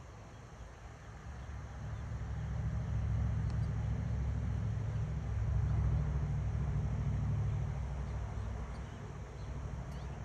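A low rumble of a passing vehicle, swelling over a few seconds and then fading.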